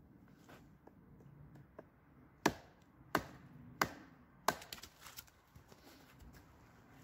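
An axe being batoned through an upright log section: four sharp knocks of a wooden baton on the axe head, about two-thirds of a second apart, then a run of smaller cracks as the log splits apart.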